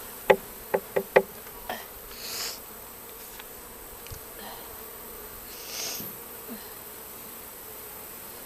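A swarm of honey bees buzzing steadily around a hive box. Four sharp knocks come close together in the first second and a half, and are louder than the buzzing; two brief rustles follow.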